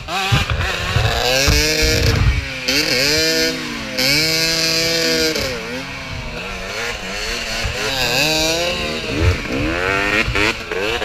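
Dirt bike engine revving up and down over and over, held at high revs for a second or two at a time: a bike stuck in deep mud.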